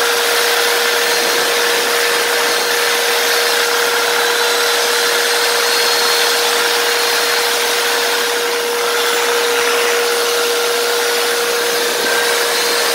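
Electric saw running steadily with its blade cutting between the sections of a cast iron radiator: a continuous, loud motor-and-blade noise with one unchanging pitched tone.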